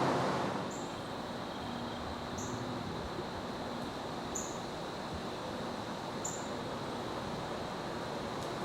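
Steady outdoor rustle of wind, with a short, high chirp repeating about every two seconds.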